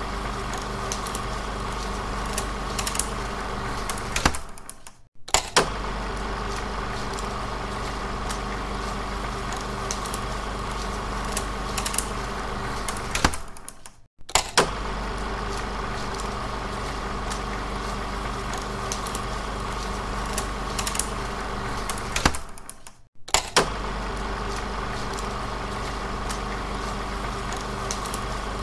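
Recorded 16mm film projector running: a steady whirring hum with light clicking from the mechanism. It drops out briefly and restarts three times, about every nine seconds, with a couple of sharp clicks at each break.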